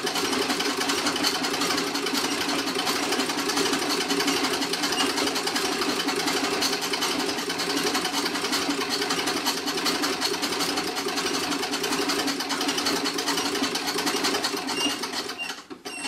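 Antique Singer 27 treadle sewing machine stitching a seam at steady speed: a fast, even clatter of the needle bar and mechanism. It winds down and stops in the last second.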